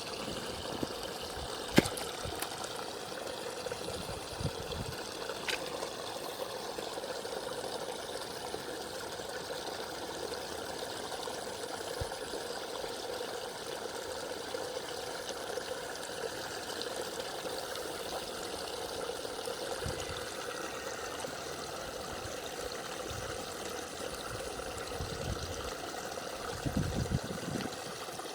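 Water running steadily, a continuous trickling flow, with a sharp click about two seconds in and a few low knocks near the end.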